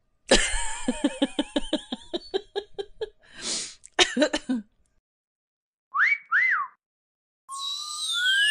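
A string of short comedy sound effects: a rapid run of pitched pulses, a brief hiss and a few more pulses, then two quick rise-and-fall whistles. Near the end a rising whistle and a falling whistle sound together.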